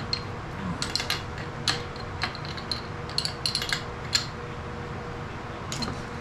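Irregular sharp metal clinks and taps, a dozen or so, as steel parts of a tool and cutter grinder's tool-holding head are loosened and handled, over a faint steady hum.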